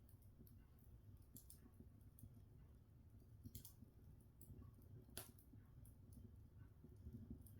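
Open log fire crackling faintly, with a few scattered sharp pops from the burning wood. The clearest pop comes about five seconds in.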